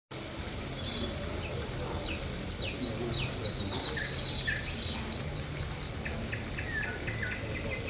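Several birds chirping and trilling, with quick high notes and short downward-sweeping calls, over a steady background hiss.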